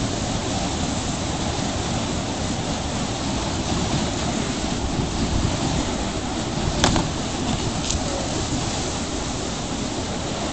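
A steady rushing noise, strongest in the low end, with one sharp click about seven seconds in.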